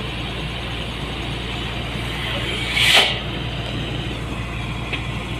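Crane's diesel engine running steadily as it hoists the ram of a diesel pile hammer, with one brief sharp noise about three seconds in and a small click near the end.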